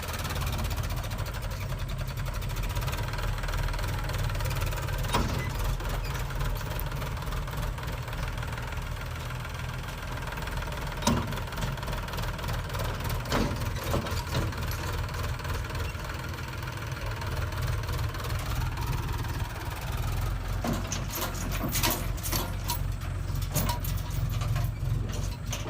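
Diesel engine of a JCB 3DX backhoe loader running steadily, with a few sharp clanks along the way and a quick run of clanks near the end.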